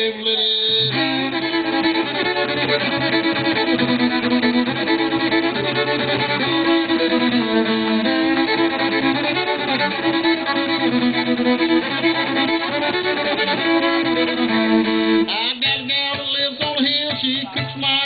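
Fiddle being bowed, playing a tune of long sustained notes over a steady low held note, with a busier run of notes about 15 seconds in.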